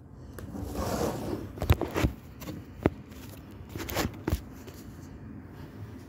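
Small handling sounds: a soft rustle about a second in, then several sharp clicks or taps spread over the next few seconds.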